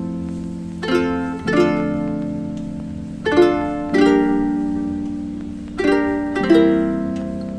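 Background music: plucked-string chords, ukulele-like, struck about once a second or so and left to ring.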